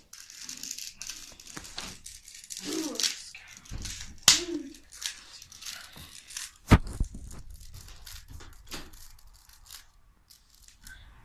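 Plastic Rubik's cube being twisted quickly by hand: a continuous stream of clicks and rattles as the layers turn, with one sharp snap about four seconds in and a low thump near seven seconds.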